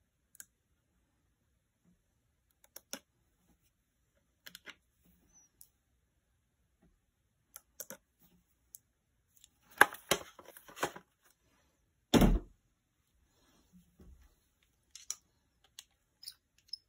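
Small metal screwdriver bits clicking and rattling in a plastic bit-organizer tray as they are picked through, in scattered single clicks. About two-thirds of the way through comes a denser clatter, then a single heavier knock with a low thump, the loudest sound.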